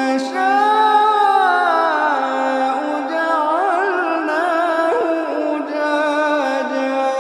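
Melodic Quran recitation: a single voice draws out long held notes with curving, ornamented pitch, heavily reverberated.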